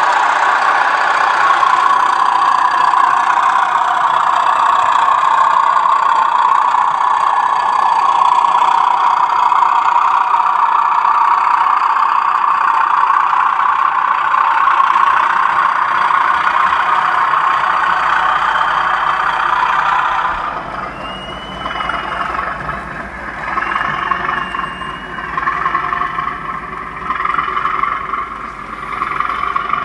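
Model railway locomotives running with DCC sound. For the first twenty seconds or so, a steady, loud diesel engine sound plays as a diesel multiple unit passes. It then changes to a quieter engine sound that rises and falls every second or two, with two short high tones soon after the change.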